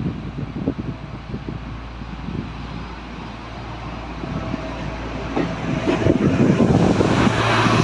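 A train approaching along the track, growing louder over the last few seconds as a steady hum comes in over the low clatter.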